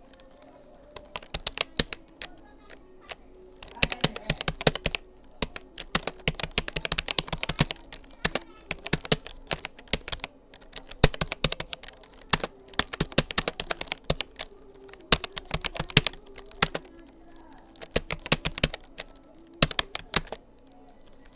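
Typing on a Rapoo computer keyboard: runs of quick key clicks broken by short pauses, starting about a second in.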